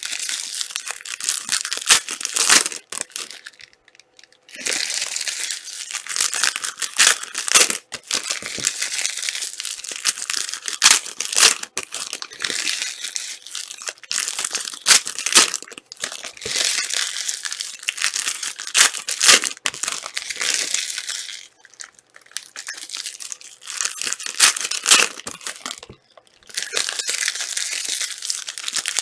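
Trading card pack wrappers being torn open and crinkled by hand, in long stretches of rustling broken by a few short pauses.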